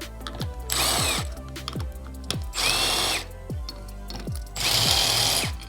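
Power drill run in three short bursts, its motor pitch rising and falling each time, as it backs out the bolts holding the power steering pump.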